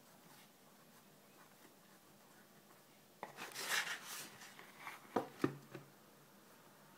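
Spiral-bound sketchbook lifted and turned, its paper and cover rustling and scraping for about a second. Then it knocks twice sharply, with a lighter third knock, as it is stood upright on the wooden table.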